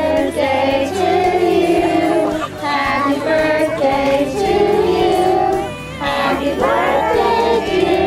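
A song with several voices singing a melody in held notes over music.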